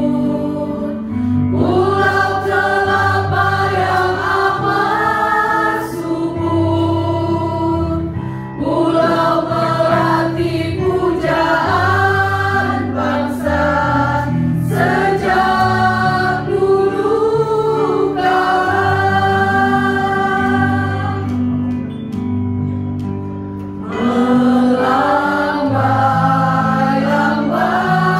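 A mixed choir of men and women singing a slow song in phrases along to a karaoke backing track with held bass notes.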